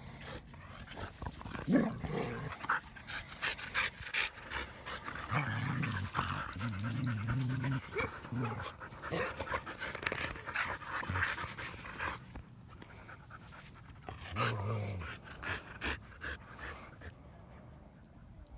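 Dogs panting, with low drawn-out vocal sounds about five to nine seconds in and again near fifteen seconds, over scuffling and rustling.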